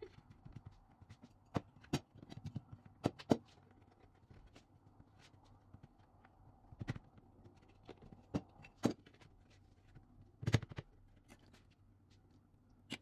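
Irregular light taps and knocks of hands pressing pie dough flat on a plastic cutting board, over a faint steady hum. The loudest, a dull thump, comes late on.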